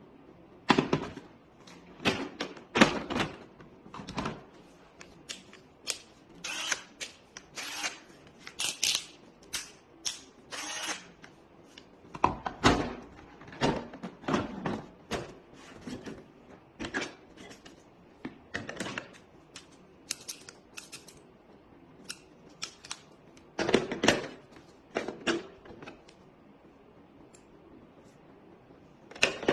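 Hand tools and their plastic carrying case being handled: irregular sharp clicks and clacks of metal and plastic, some in quick runs, with a few quieter pauses.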